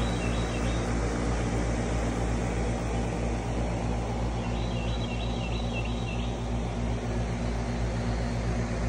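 A steady machine hum with a low drone and a few even low tones, unchanging throughout. A bird trills briefly twice, at the start and about five seconds in.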